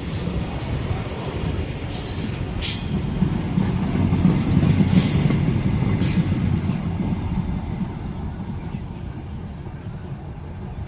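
Freight train wagons rolling past on the track: a steady low rumble of wheels, with a few sharp clicks and a short high wheel squeal about five seconds in. The rumble eases near the end.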